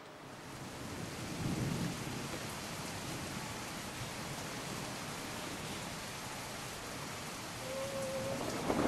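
A steady, even hiss with no speech, and a short faint tone about eight seconds in.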